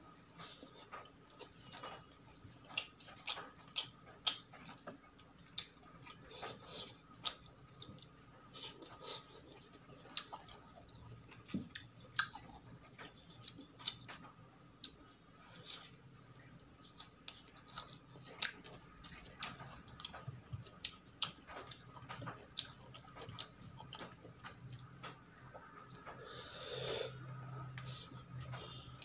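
Close-miked chewing and mouth sounds of a person eating, with many sharp, irregular smacks and clicks.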